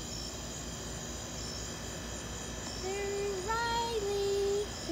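Crickets chirping steadily in the background. About three seconds in, a voice makes three drawn-out, sing-song notes that last about a second and a half.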